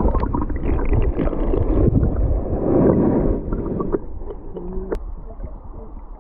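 Rushing river water gurgling and churning as heard by an underwater camera in the shallows, loud for about four seconds and then easing off. A short low hum and a single sharp click come about five seconds in.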